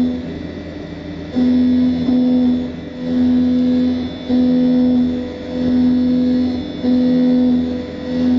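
CNC lathe cutting an aluminium chain sprocket under coolant. A steady, mid-pitched cutting tone cuts in and out about every second, over a constant low machine hum.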